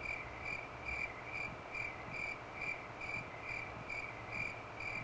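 A cricket chirping steadily, short even chirps about two a second.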